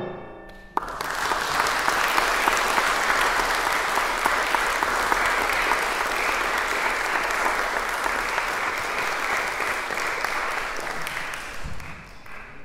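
The last chord of the violin, cello and piano trio rings out and fades, then audience applause breaks out about a second in. The clapping holds steady and thins out near the end.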